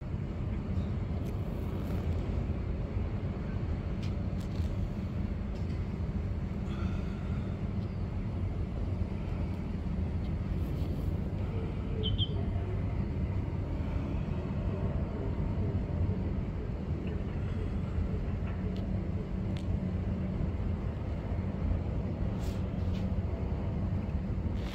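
Steady low rumble of outdoor city background noise, with a few faint ticks.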